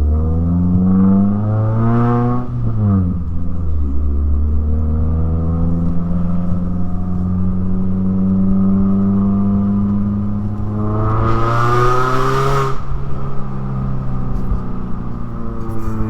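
A 2009 Mazda3's 2.3-litre four-cylinder, running a racing header, straight pipe and high-flow cat, pulling hard under acceleration. The revs climb for a couple of seconds and drop at a gear change, hold steady, then climb again and drop at a second shift near the end. The exhaust is loud and obnoxious.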